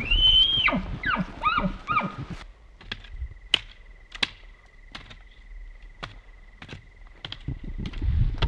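Bull elk bugling: a high whistle held briefly and then dropping, followed by a run of short chuckles. After about two and a half seconds it turns quieter, with a faint steady high tone and a few scattered clicks.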